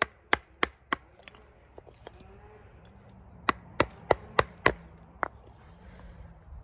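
Wooden striking block knocking on the handle of a wood chisel as it cuts into wood. The sharp knocks come in two runs: four about three a second at the start, then after a pause of a couple of seconds, six more.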